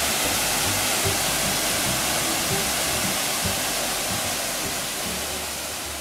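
Waterfall rushing into a pool, a steady broad hiss that slowly fades out.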